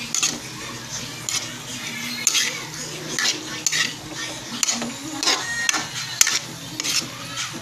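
Spatula scraping and turning sliced bitter melon in an aluminium wok during stir-frying: about a dozen uneven scrapes and knocks against the pan, roughly two a second.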